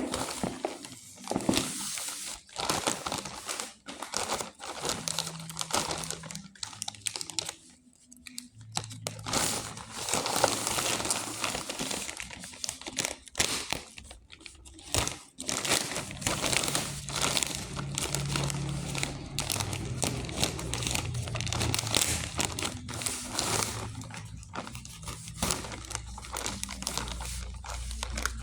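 Packaging crinkling and rustling in irregular bursts as it is handled and opened, with short pauses.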